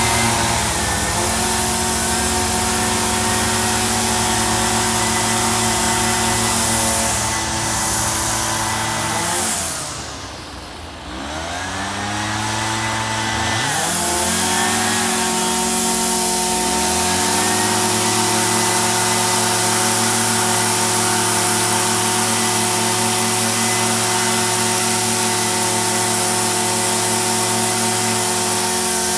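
Small two-stroke engine running steadily at speed; about ten seconds in, its speed drops sharply, then climbs back over a few seconds and holds steady again.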